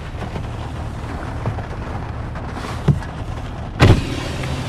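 Steady low rumble inside a vehicle cab with rain pattering on the glass, and one heavy thump just before four seconds in.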